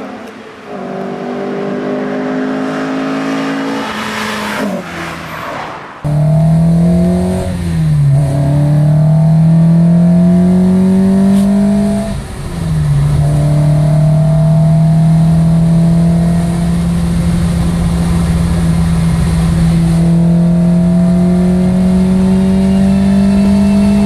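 Opel Ascona i400's four-cylinder engine approaching with rising revs and passing by about four to five seconds in. After a sudden cut it is heard loud from inside the car, accelerating hard with two upshifts, then pulling steadily with slowly rising revs.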